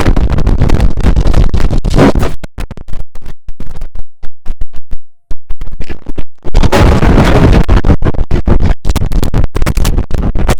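IBM OS/2 Warp 3 shutdown sound played back heavily distorted and clipped by audio effects, a harsh noisy blare that breaks into rapid stuttering fragments in the middle, drops out briefly about five seconds in, then returns as a dense noisy blare.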